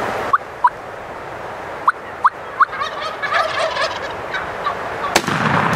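Gould's wild turkeys calling at close range: several short sharp notes, then a gobble about three seconds in. Near the end there is a single sharp blast from a 20-gauge shotgun firing at a gobbler.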